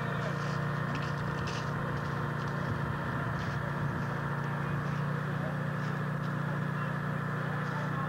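Truck-mounted crane's engine running steadily at a constant speed, with voices of people talking in the background.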